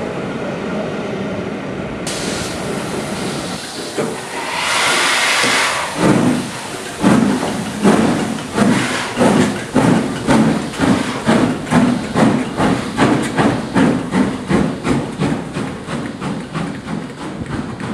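Steady rumble of a passing train that cuts off, then a crimson LMS Pacific steam locomotive starting away: a loud burst of steam hiss, followed by exhaust chuffs that quicken from about one a second to more than two a second as it gathers speed.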